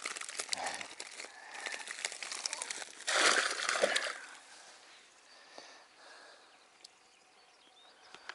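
Close rustling and crackling handling noise from a mesh fishing keepnet and grass being handled, loudest about three seconds in, then dropping to a quiet outdoor background.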